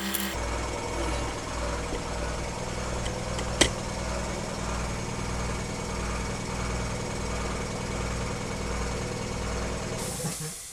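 A motor running steadily with an even low throb, about two pulses a second, fading out near the end.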